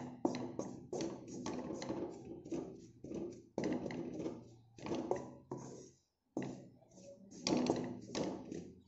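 A spatula scraping and knocking against a black pan, stirring wheat flour roasting in ghee: an uneven run of taps and scrapes, a few a second.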